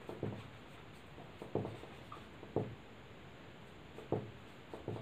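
Marker pen writing on a whiteboard: faint, short strokes and taps, about one every second.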